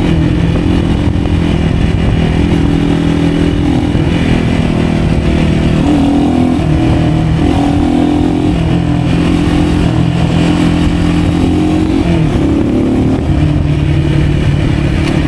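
Motorcycle engine running steadily under way, its pitch stepping up and down several times with throttle and gear changes.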